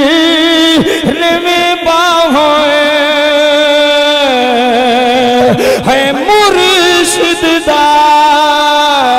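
A man singing Punjabi devotional verse in long drawn-out notes, with wavering ornaments between steady held tones.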